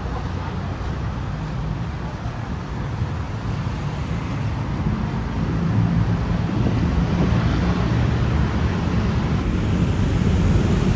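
Steady road-traffic rumble mixed with wind on the microphone, slowly getting louder.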